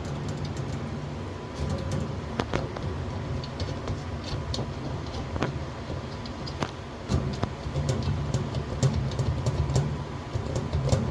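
Scattered light clicks and knocks of metal fittings being handled and adjusted on a stainless steel uncapping tank, over a steady low hum.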